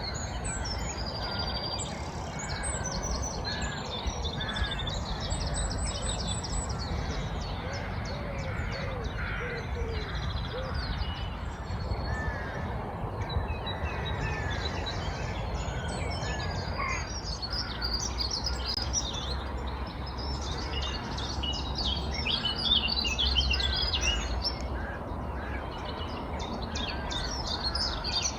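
Many wild birds singing and chirping at once in a spring morning chorus, busier and higher-pitched in the second half, over a steady low rumble of outdoor background noise.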